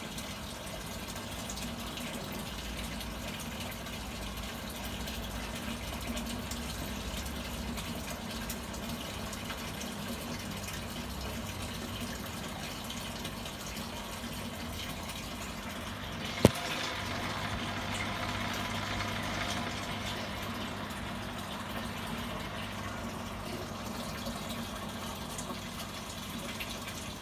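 Aquarium water running and splashing steadily over a low steady hum, the sound of the tank's filtration. One sharp click about sixteen seconds in.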